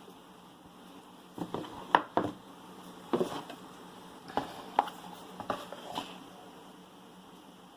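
Hands handling a smartphone and its packaging: a string of short taps, clicks and knocks, bunched in the middle, with the loudest about two seconds in.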